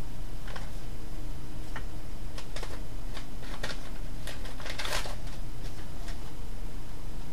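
Papers and envelopes rustling and tapping as they are handled and sorted on a desk: scattered short clicks and rustles, with a longer, louder rustle about five seconds in, over a steady low hum.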